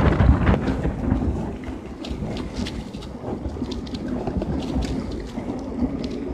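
Wind buffeting the microphone of a bicycle-mounted camera, with tyre noise on wet asphalt and scattered light clicks and rattles from the bike. The rumble is strongest at the very start.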